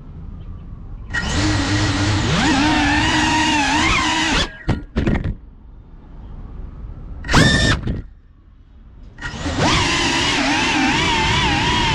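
GEPRC CineLog35 cinewhoop drone's motors and ducted propellers whining under throttle: a run with wavering pitch, then two short bursts with quiet gaps between, then steady flight for the last couple of seconds. The stop-start bursts fit the drone getting going again after a crash.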